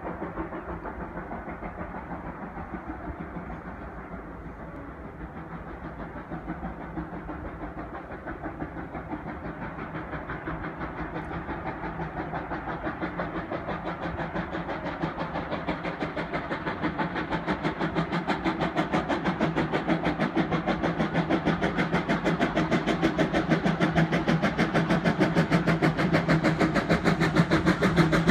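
Exhaust beats of the 1873 Mason 0-6-4T steam locomotive Torch Lake, a fast, even chuffing that grows steadily louder as the engine approaches while being worked hard.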